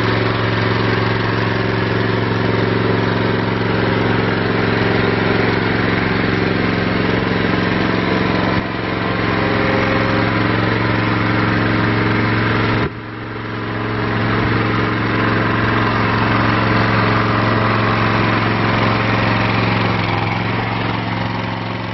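Small gasoline engine of a Donkey Burro walk-behind truck-mount forklift running steadily as the machine is driven. The level dips sharply twice midway, then recovers, and fades near the end.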